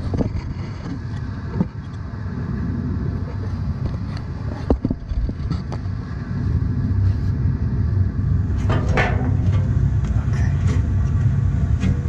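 Sheet-metal door panel of a Lennox ML193 gas furnace knocking and rattling as it is fitted, over a steady low rumble. The rumble grows louder about six or seven seconds in as the furnace blower comes on at its highest speed once the door switch is closed.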